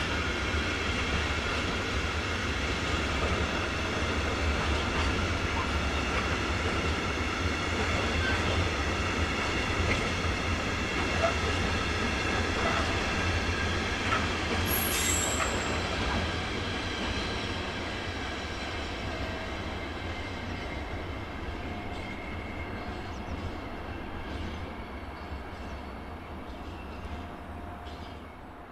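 Freight train of tank wagons rolling past, a steady rumble of wheels on rail with a high, steady whine over it, fading over the last ten seconds or so. A brief high hiss comes about halfway through.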